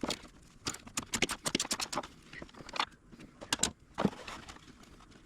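Hand ratchet wrench clicking in quick runs, with a few metallic clinks, as it backs off the pre-soaked upper strut-mount nuts.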